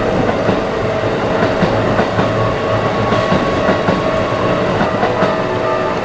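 Keikyu electric train running past at a level crossing, its wheels clicking over the rail joints, with steady humming tones beneath.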